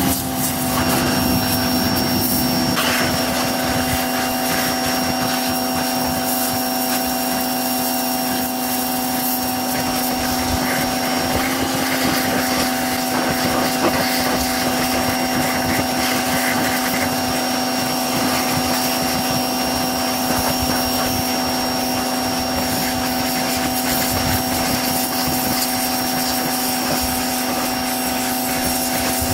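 Snap-on pressure washer running steadily, its pump motor holding a constant hum under the hiss of the high-pressure water spray as it cleans dirt off a motorcycle, with a brief dip in pitch about a third of the way through.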